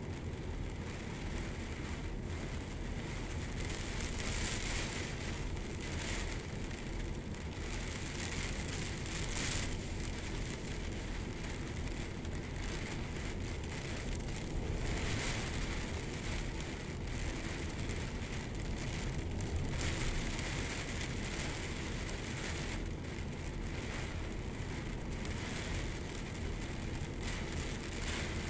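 Heavy rain falling on a flooded yard, the hiss swelling and easing every few seconds as gusts of wind drive it across the water, over a steady low rumble.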